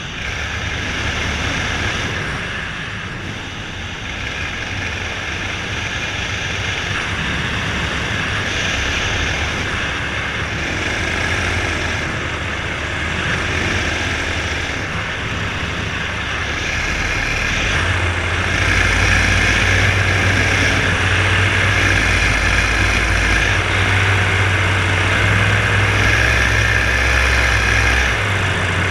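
Polini two-stroke paramotor engine running steadily in flight. It gets louder, with a stronger low drone, about two-thirds of the way in.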